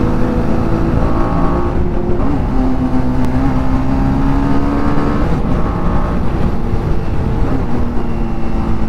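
Motorcycle engine held at high revs under hard riding, its pitch mostly steady with a couple of brief dips, over heavy wind rush on a helmet-mounted mic.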